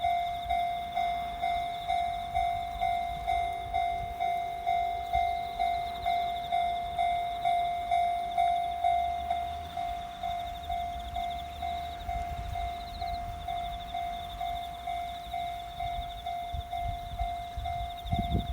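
Japanese level-crossing alarm bell ringing in an even ding-ding about twice a second. From about halfway through, the low rumble of a train builds, growing strongest near the end as the train reaches the crossing.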